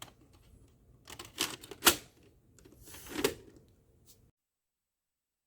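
Hard plastic clicks and clunks as a VHS cassette is handled and loaded, with a sharp snap near two seconds in and a rattling clunk about three seconds in. The sound cuts off suddenly a little past four seconds.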